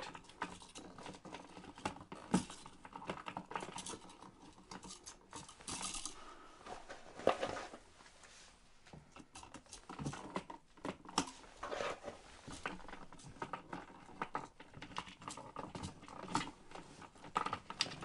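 Faint, irregular clicks and rustles of handling: stiff copper wires being bent and folded with needle-nose pliers behind a light switch, and the switch being worked toward its wall box.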